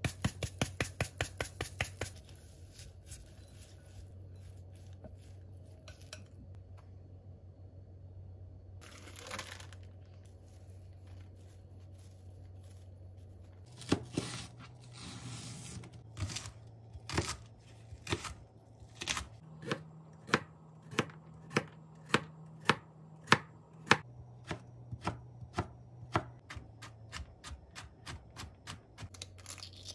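Chef's knife cutting vegetables on a plastic cutting board. A slicing stroke runs along a long green stalk, then sharp, evenly spaced knocks of the blade on the board follow, coming faster near the end as a carrot is cut into strips. A quick run of light clicks sounds at the very start.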